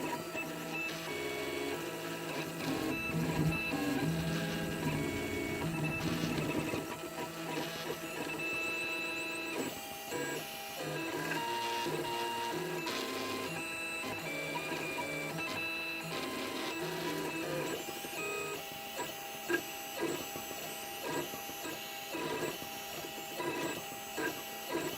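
Stepper motors of a 3D printer running as a pen plotter, whining through a series of short moves. The pitch jumps from one move to the next, with a few light ticks in the second half.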